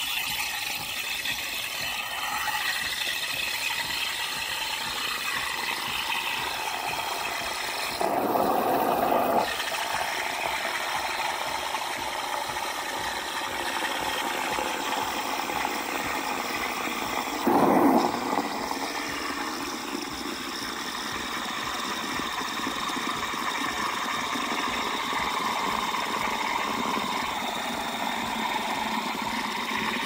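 Café Affetto espresso machine's steam wand frothing milk in a stainless steel pitcher, running steadily, with two brief louder bursts about eight and seventeen seconds in.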